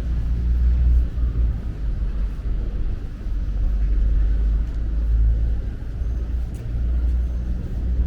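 Low, steady rumble of street traffic, rising and falling a little in level.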